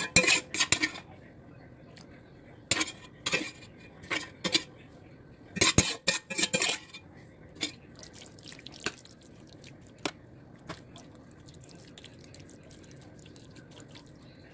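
A spoon clinking and scraping against the pan while meat sauce is spooned and spread over lasagna noodles: clusters of quick knocks through the first seven seconds, then a few scattered ticks.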